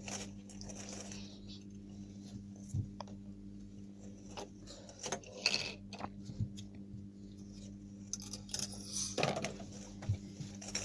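Scattered light clicks and clinks of small objects being handled, over a steady low hum.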